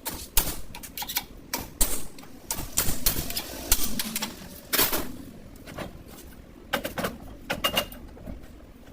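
Hand tools clicking and knocking irregularly against metal parts, with several short clusters of strikes.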